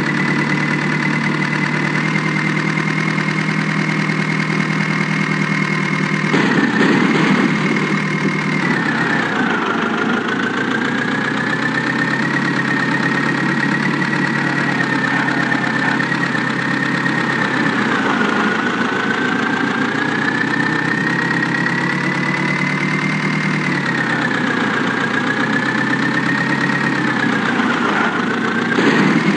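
A heavy diesel engine idling steadily, with a high whine that slowly drifts up and down in pitch.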